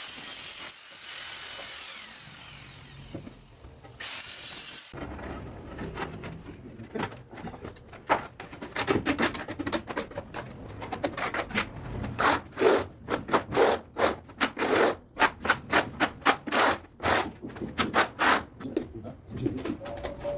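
Hand-worked rubbing strokes, quick and rhythmic at about three a second, starting about five seconds in after a stretch of steady hiss.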